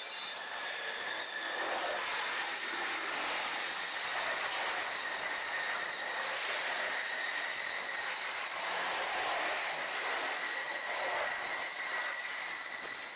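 A BNSF double-stack intermodal freight train running past, played back at eight times speed, so its noise comes out as a steady high hiss with a thin whine running through it. It eases off slightly near the end.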